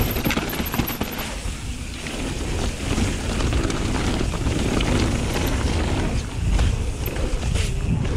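Mountain bike descending a dirt singletrack, heard through a GoPro's microphone: a steady rush and low rumble of wind and tyres on dirt, with frequent clicks and rattles from the bike over bumps.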